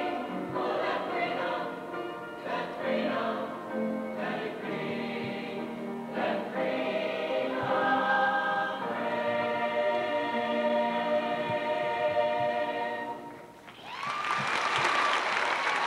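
School choir of young voices singing a song together. The song ends about three-quarters of the way through, and the audience breaks into applause right after.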